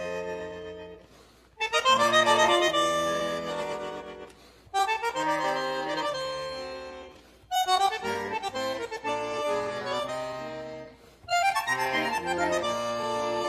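Background music led by an accordion, playing a melody in four phrases that each start loud and fade away.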